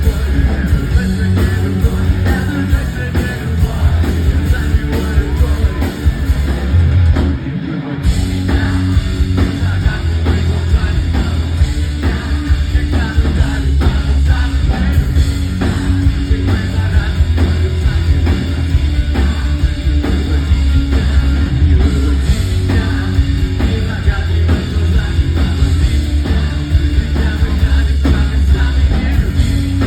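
Rock band playing live, with loud bass and drums. The band drops out for a moment about eight seconds in, then comes straight back in.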